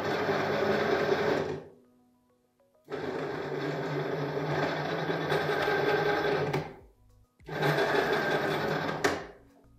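A brushless motor driving a 3D-printed herringbone gearbox whirs under load as it swings its arm to lift a 5 kg weight. It runs in three spells of a few seconds each, with a short silent pause between them.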